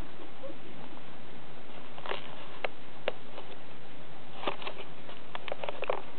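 Newborn puppies stirring in a heap: small clicks, sniffs and faint squeaks in two short clusters, about two seconds in and again from about four and a half seconds, over a steady hiss.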